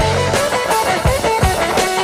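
Background music: a guitar melody over bass and a steady beat.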